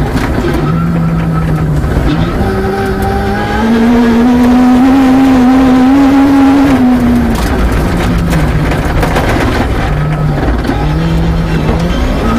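Peugeot 306 rear-wheel-drive rally car's engine heard from inside the cabin, driven hard on a gravel stage. The engine note steps up about two seconds in, climbs to its loudest in the middle, then drops back after about seven seconds, over steady gravel road noise with stones clicking under the car.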